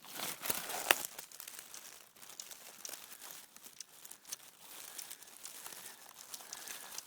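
Close rustling and crackling right at the microphone, loudest in the first second with one sharp crack, then going on as lighter, irregular crackles.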